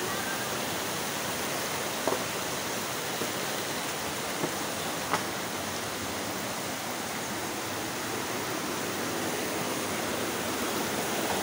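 Mountain river rushing over boulders in white-water rapids, a steady even roar of water. A few brief sharp clicks stand out in the first half.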